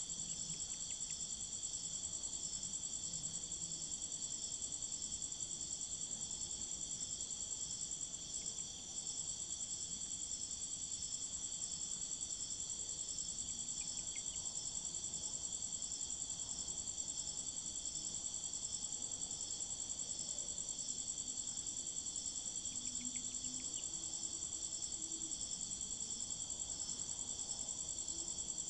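Crickets trilling steadily in a high-pitched, fast-pulsing, unbroken chorus.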